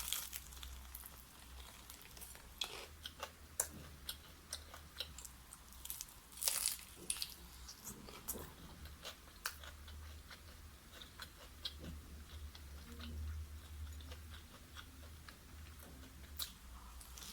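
Close-miked biting and chewing of crispy fried chicken: scattered crunches and mouth clicks, a few louder bites among them, over a steady low hum.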